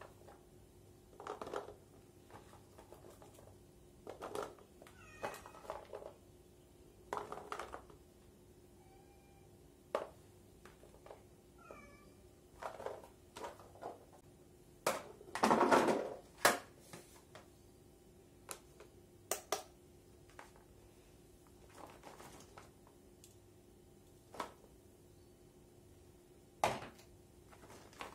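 A cat meowing now and then in short calls, over the clatter of shallots and garlic cloves being picked up and dropped into a tray on a kitchen scale, with a louder rattle of about a second a little past the middle.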